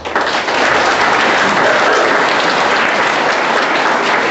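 An audience applauding steadily, starting abruptly and holding at full strength.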